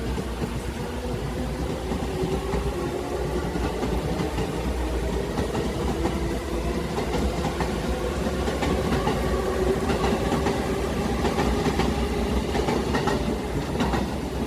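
Sobu Rapid Line electric train running past: a steady motor whine, with the wheels clattering over rail joints in the second half, where it is loudest.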